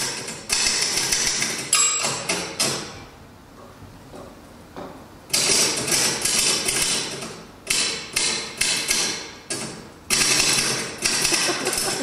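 Typewriter keys struck in quick rhythmic bursts, mixed with drum kit and cymbal hits, played as call and response. About three seconds in it drops to a quieter stretch of roughly two seconds, then the strikes resume.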